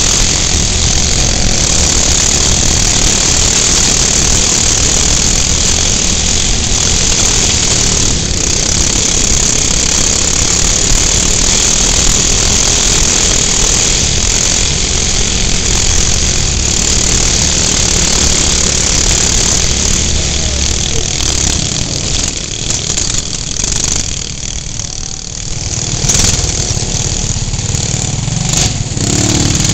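Small 6.5 hp single-cylinder engine of an off-road racing kart running hard, heard from on board, with a steady high hiss over the engine. The engine note drops about 24 seconds in and picks up again about two seconds later.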